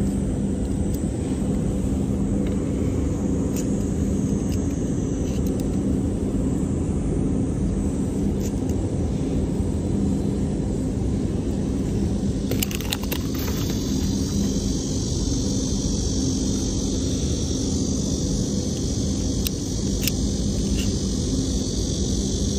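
Steady low rumble with a constant low hum, and a few brief clicks, a cluster of them about twelve seconds in.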